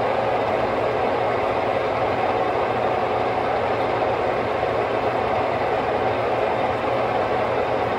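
Horizontal boring mill running steadily, its spindle turning a 1 1/4-12 tap through a quill nut to cut the thread; an even machine hum with no breaks.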